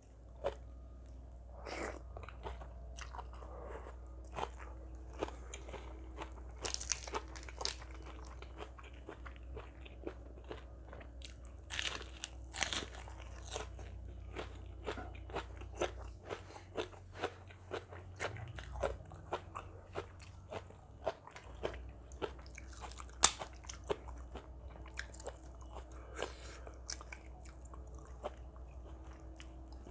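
Close-up eating sounds: a person chewing and crunching a mouthful of Thai seafood papaya salad, with many short crisp crunches and mouth clicks throughout, over a steady low hum.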